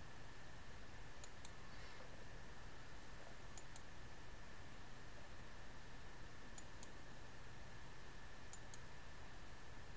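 Computer mouse clicked four times, each a quick pair of clicks (button press and release), roughly every two to three seconds, over a faint steady hiss with a thin high whine.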